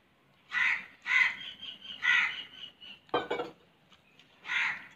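A crow cawing over and over, harsh calls of about half a second each, roughly one a second, with a pause before a last caw near the end.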